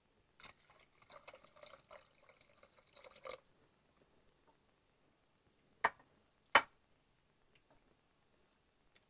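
Water poured into an enamelled pot of crushed tomatoes and onions, splashing for about three seconds. A wooden spoon then stirs and knocks sharply against the pot twice, about two-thirds of the way in.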